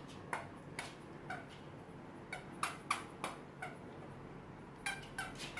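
French bulldog giving a string of short, high squeaky yelps, each falling in pitch, about a dozen in uneven clusters.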